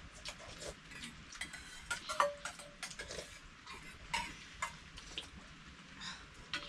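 Metal utensils and dishes clinking: an irregular run of light clicks and knocks, with a brief ringing clink about two seconds in.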